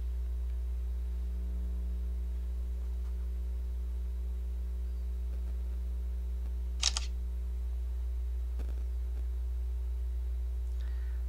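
A smartphone camera shutter clicks once, about seven seconds in, over a steady low electrical hum.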